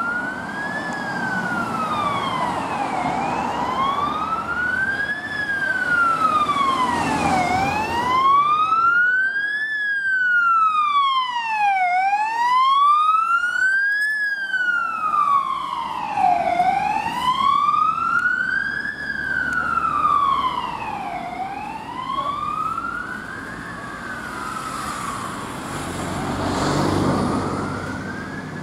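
Opel Movano ambulance's siren on an emergency run, a wail that rises and falls slowly, about one sweep every four and a half seconds. It grows loudest in the middle as the ambulance passes close, then fades, with a low traffic rumble near the end.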